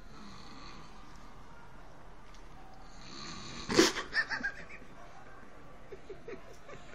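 A man snoring heavily in his sleep, loud enough to be likened to a tractor engine. About two-thirds of the way through, a sudden loud burst breaks in, followed by a few short bursts of stifled giggling.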